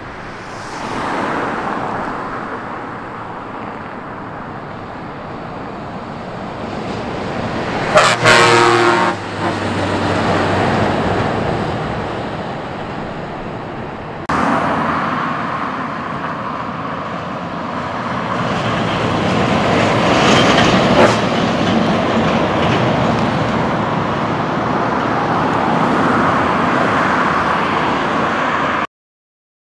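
Scania R-series truck driving along a street with steady engine and road noise, and about eight seconds in a loud horn blast lasting about a second.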